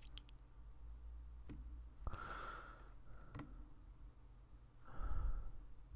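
A man sighing into a close microphone twice, about two seconds in and again about five seconds in, with a few faint computer-mouse clicks between.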